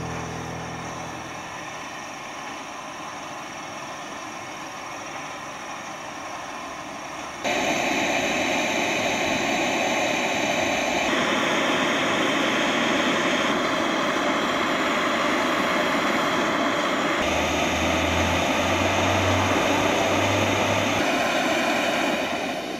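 Coleman Feather Stove 442 gasoline camp stove burner running steadily at full flame under a tin of cloth being charred. The sound jumps louder about seven seconds in and shifts abruptly a few more times before fading near the end.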